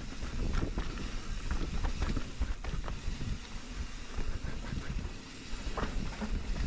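Wind rumbling on the microphone of a mountain bike riding down a rough trail. Scattered knocks and rattles from the bike and its tyres on the ground come through the rumble.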